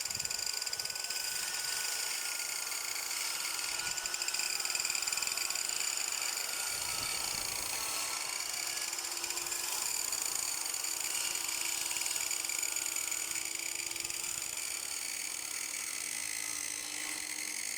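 Electric power tool motor running steadily at speed: a high whine made of several tones that waver slightly in pitch together, with no cutting strokes breaking it.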